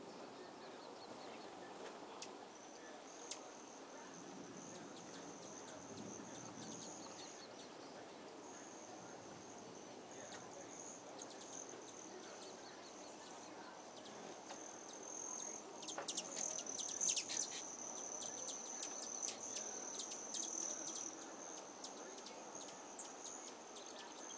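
Insects trilling steadily on one high pitch, with a burst of sharp ticking chirps about two-thirds of the way through, the loudest part.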